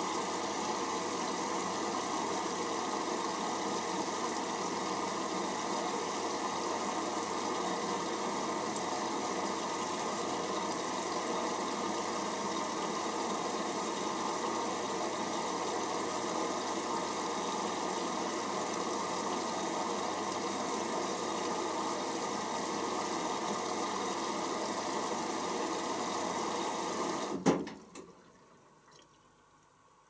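Hoover Optima OPH714D washing machine's water inlet valve open, with water rushing steadily into the machine to fill for the pre-wash after load sensing. Near the end the flow cuts off suddenly with a loud knock as the valve shuts.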